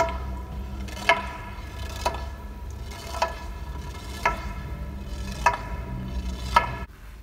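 A cane tapping on the stairs at each step as someone climbs: seven sharp taps with a short ringing tone, about one a second, over a steady low hum. The hum and taps cut off suddenly near the end.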